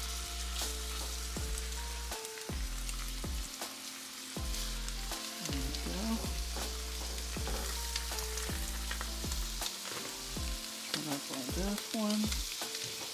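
Seasoned redfish fillets sizzling as they are laid into hot foaming butter and olive oil in a nonstick skillet, with light ticks of a silicone spatula against the pan. Background music plays underneath.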